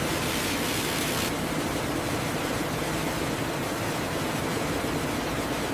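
Steady, even hiss of running food-processing machinery on a stem-cutting line, with no distinct cutting strokes; it is brighter and hissier for about the first second.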